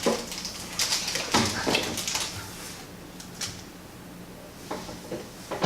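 Hands handling a mystery pin pack and its pins: scattered short crinkles and light clicks, with a quieter stretch just past the middle.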